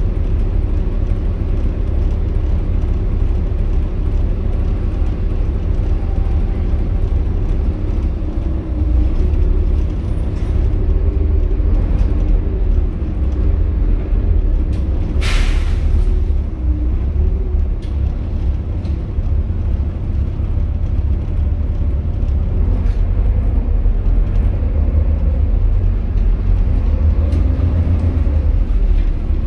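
Volvo B7TL double-decker bus under way, heard from inside the saloon: a steady low rumble from its Volvo D7C straight-six diesel. About halfway through comes one short hiss of compressed air from the air brakes.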